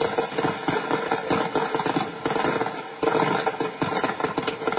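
Rapid, dense crackling and popping of many small explosions going off in the smoke of a massive blast, over a steady tone.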